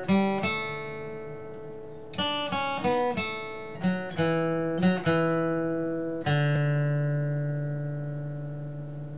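Acoustic guitar playing a song's closing chords: a run of strummed and picked chords, then a final chord about six seconds in that is left to ring and slowly fade away.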